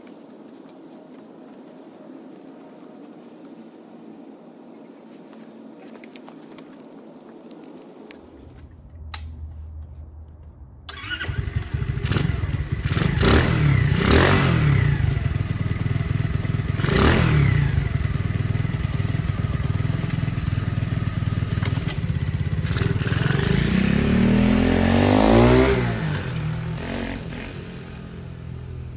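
Lifan 125 single-cylinder four-stroke engine in a Honda CT70 running after its carburetor was rejetted with a 100 main jet. It starts low at idle, is revved up and down about three times, then revs up strongly as the bike pulls away and fades off. The first eight seconds hold only faint clicks of hands on the carburetor.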